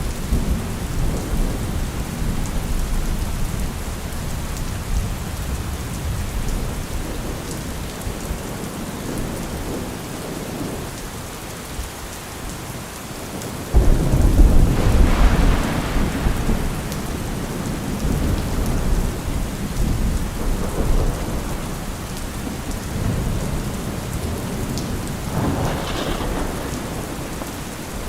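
Steady rain falling, with thunder rumbling. About halfway through, a sudden loud thunderclap breaks in and rumbles on for several seconds. A smaller roll of thunder follows near the end.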